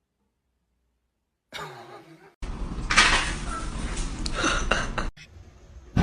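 Silence, then about a second and a half in, clattering and knocking of hard objects, loudest and densest in the middle, dropping off shortly before the end.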